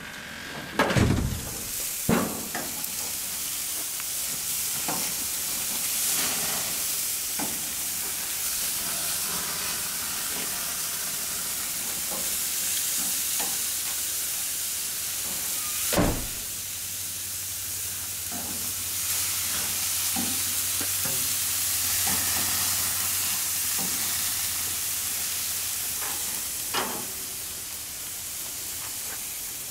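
Ribeye steaks sizzling steadily on the hot grates of a gas grill. A few sharp metal knocks and clanks come through it, the loudest about a second in and about sixteen seconds in.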